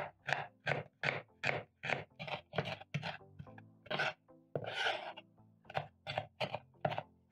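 Kitchen knife dicing a red onion on a wooden chopping board, quick even cuts about three a second, with one longer scrape near the middle. Soft background music underneath.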